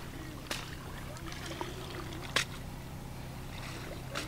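Shallow water splashing and sloshing as people wade and feel for fish by hand, with faint voices in the background. A sharp click cuts through about half a second in, and a louder one about two and a half seconds in.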